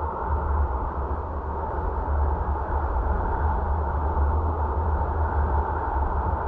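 Steady road and wind noise of a car driving, with a deep low rumble and a faint steady whine above it.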